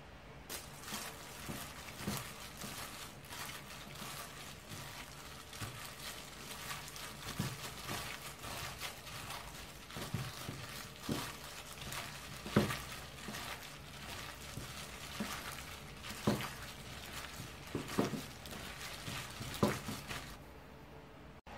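A hand in a plastic glove mixing dried pollack strips into thick flour batter in a stainless steel bowl: continuous crinkling and wet squishing, with a few louder knocks in the second half. The mixing stops about a second before the end.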